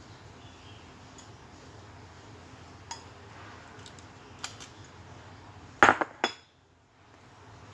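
Kitchenware clinking and clattering as dishes and utensils are handled: a few light clinks, then three sharp clatters in quick succession about six seconds in.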